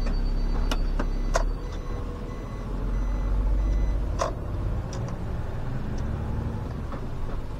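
SOR CN10.5 city bus: a high steady electronic warning tone that stops about a second and a half in, a few sharp clicks and knocks, then the bus's diesel engine running louder.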